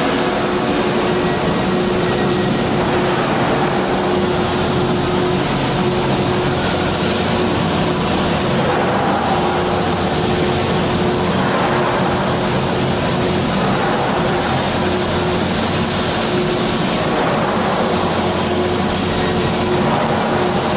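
Steady hum and noise of running machinery in a factory hall, with a constant mid-pitched drone and no distinct strikes or drilling.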